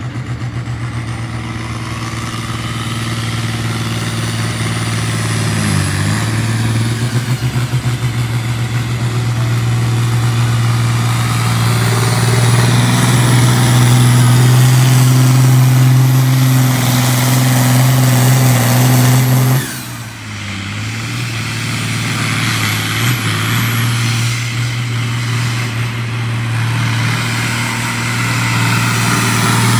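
Diesel pulling tractor under full load pulling a sled. The engine runs hard at high revs with a high whistle over it. About two-thirds of the way through, the engine note drops sharply for a moment, then picks back up and runs on.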